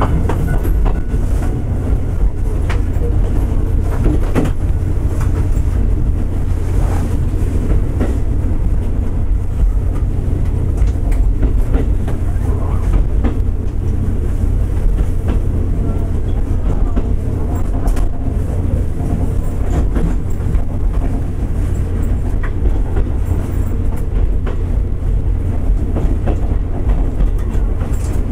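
Diesel train running along the track: a steady low rumble of engine and wheels, with scattered clicks of the wheels over rail joints, heard from inside the car.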